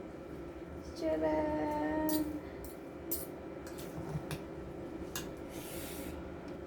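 A woman's voice drawing out a sung "ta-da" exclamation, over a steady low hum, followed by a few light clicks and a short hiss.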